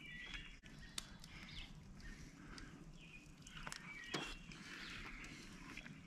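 Quiet outdoor ambience with faint birds chirping, and a few soft clicks of a plastic fork on a paper plate as food is eaten.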